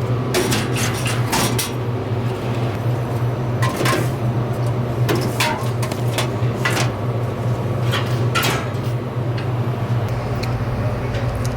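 Drink cans and bottles knocking and clinking irregularly as they are loaded into a vending machine, over a steady low hum.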